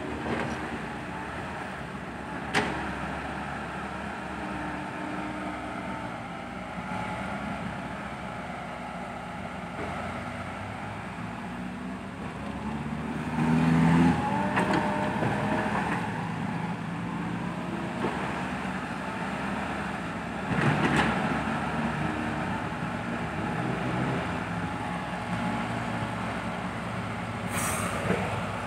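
Diesel dump truck engines running steadily, with the engine noise swelling louder twice as trucks pull and rev, a sharp knock a few seconds in, and a brief high hiss near the end.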